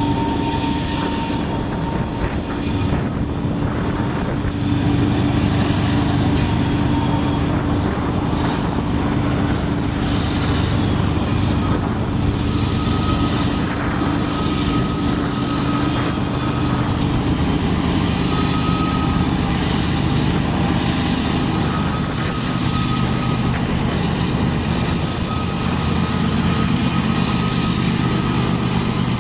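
Diesel locomotives hauling a CSX freight train, running as they come round a curve and pass close by: a steady engine drone over the rumble of the train.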